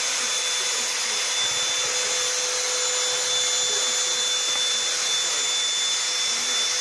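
Vacuum cleaner running steadily, a constant rush of air with a steady whine over it.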